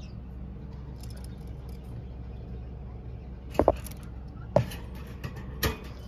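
A few sharp clicks from a wire bird cage being knocked and handled, two close together about halfway through and two more singly after, over a steady low hum.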